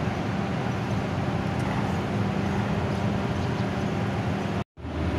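Low, steady engine rumble of cars rolling slowly in a line, led by a Mercedes-AMG C63 coupe's twin-turbo V8. The sound cuts out to silence for a split second near the end.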